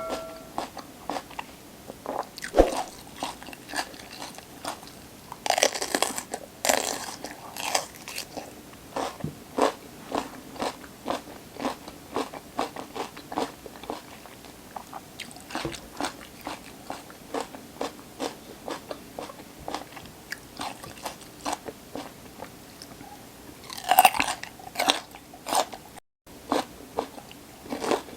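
Close-miked biting and chewing of crisp raw vegetables: a steady run of sharp crunches, a few a second, with louder, denser bites about six seconds in and again near the end.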